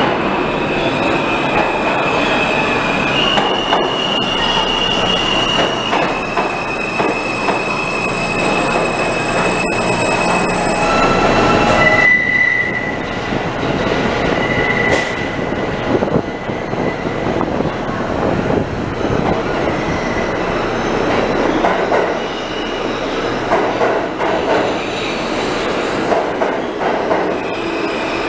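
New York City subway trains running through an underground station, steel wheels squealing on the rails over the rumble and clatter of the cars. For the first twelve seconds the squeal is long and high-pitched and jumps in pitch a few times. After that it comes and goes in shorter squeals.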